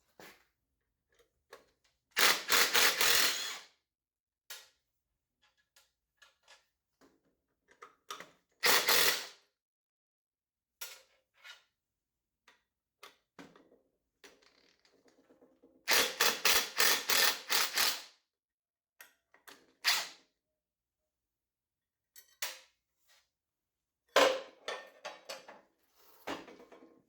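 Impact driver hammering in four short bursts of rapid impacts, backing out the countersunk Torx screws that hold a snowmobile primary clutch's starter ring. Scattered light clicks of tool handling come between the bursts.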